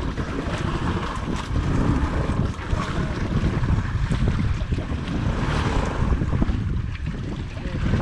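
Wind rumbling on the microphone over sea waves washing around a small outrigger fishing boat.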